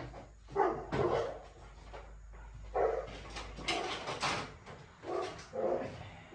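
Dog barking, a run of short barks one after another.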